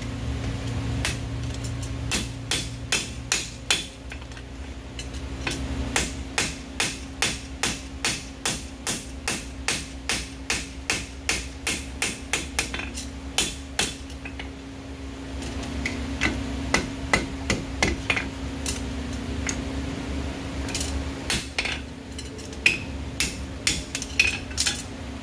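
A farrier's hammer striking a red-hot steel horseshoe on an anvil as it is shaped, in runs of blows about two a second with short pauses between runs. A steady hum sits underneath.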